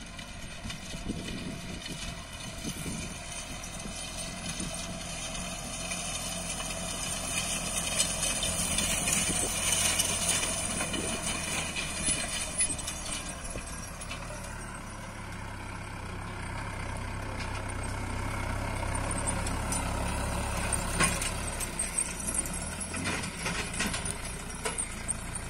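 John Deere 5093E tractor's diesel engine working under load as it pulls a seed drill across tilled ground, growing louder as the tractor approaches. Scattered clattering knocks from the rig near the end.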